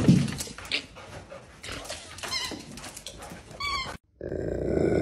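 A dog moving about on a tile floor, with scattered clicks and knocks and a couple of short, high, wavering whines. About four seconds in, a Rottweiler gives a loud, low, sustained growling grunt.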